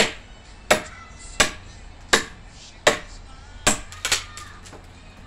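Small machete chopping a dead branch for firewood: about eight sharp blade strikes into the wood, one every three-quarters of a second or so, the last two close together, stopping about four seconds in.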